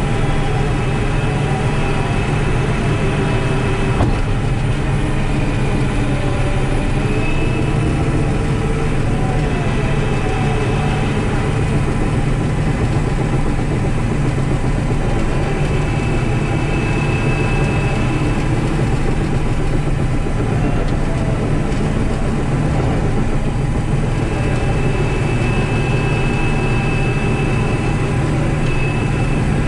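Caterpillar 973C track loader's diesel engine running steadily while the machine works, heard from the operator's seat, with a faint high whine coming and going.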